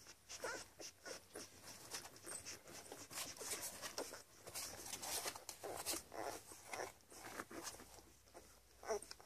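Ten-day-old Labrador puppies suckling at their mother's teats: a run of irregular wet smacking and clicking with a few small squeaks, the loudest one near the end.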